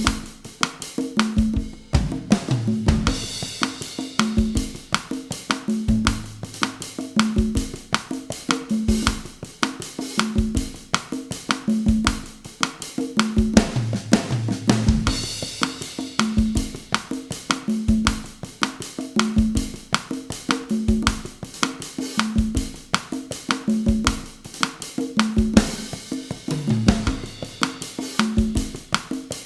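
Bossa nova groove at 160 bpm on drum kit and conga, with bass drum, snare and cymbal in a steady repeating pattern and a short fill about every twelve seconds.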